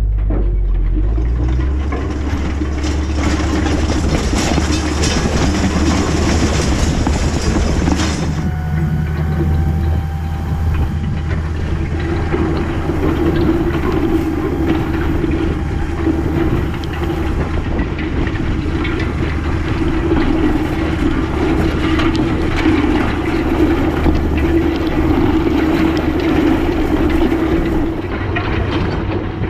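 An air seeder drill working a field, with its openers dragging through the soil and the frame, tines and hoses rattling steadily over a low machinery hum. The sound changes abruptly about eight seconds in.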